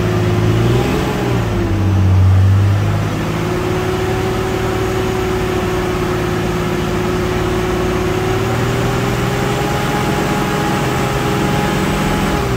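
2006 Dodge Ram 3500's 5.9L Cummins straight-six turbo-diesel heard from inside the cab, revved briefly in the first few seconds and then settling to a steady idle.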